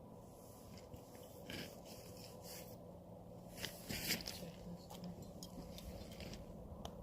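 Scattered short scrapes, crunches and clicks of handling close to the microphone, in two loose clusters, over a faint steady hum.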